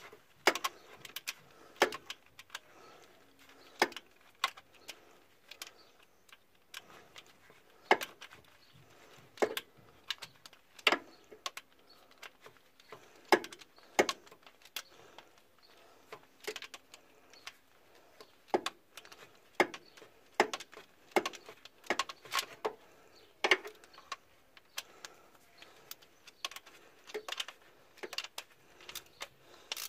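A spanner clinking on bolts and metal as bolts are tightened by hand: sharp metallic clicks at irregular intervals, about one every second or so.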